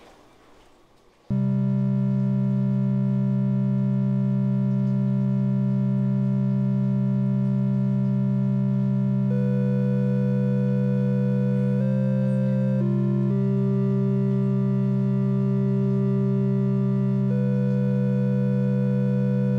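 Synthesizer music starts abruptly about a second in. A loud, steady low drone holds throughout, with sustained notes above it that change pitch slowly a few times.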